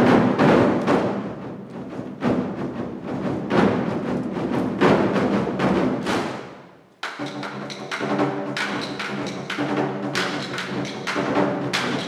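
An ensemble of 24 Festive Drums, large Chinese drums, beaten with sticks in fast, dense strokes. The drumming dies away about six seconds in, then a new passage starts suddenly about a second later, with steady held tones beneath the strokes.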